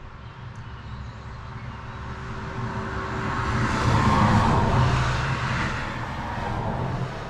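A motor vehicle passing by: its engine and tyre noise grow louder to a peak about four seconds in, then fade, and the sound cuts off abruptly at the end.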